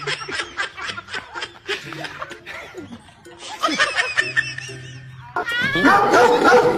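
Laughter in quick, repeated bursts over background music, growing louder near the end.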